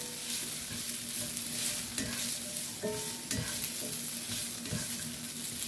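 Sliced bell peppers sizzling in a cast iron skillet as a spatula stirs them, with a few light scrapes and taps against the pan between about two and three and a half seconds in.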